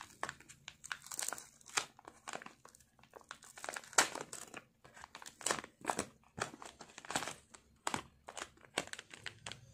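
Yellow padded mailer envelope crinkling and tearing as it is pulled open by hand, in many irregular crackles, then cut with scissors near the end.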